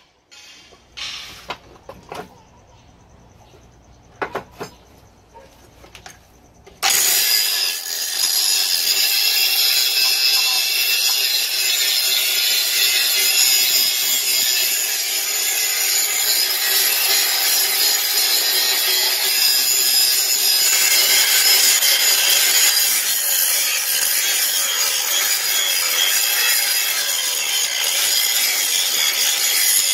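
A few scattered knocks and clicks, then about seven seconds in a DCA angle grinder starts and grinds steadily against the rusty steel of an old axe head, a loud continuous rasping that runs on with only small changes in level.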